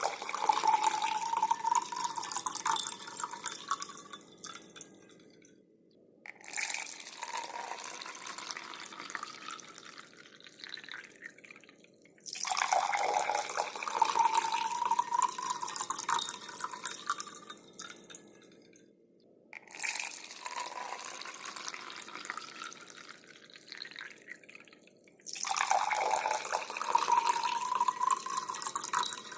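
Water poured into a drinking glass, over and over in separate pours of about six seconds each. In each pour the splashing carries a tone that rises in pitch as the glass fills, then stops sharply before the next begins.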